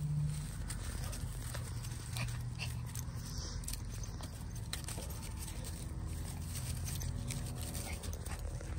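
Yorkshire terrier making excited noises while being petted and rubbed, with rustling and handling clicks.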